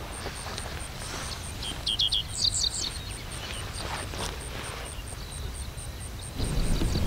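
Birds chirping outdoors: a quick run of short, high chirps about two seconds in. Under it are a faint high pulsing note about three times a second and a low rumble that grows louder near the end.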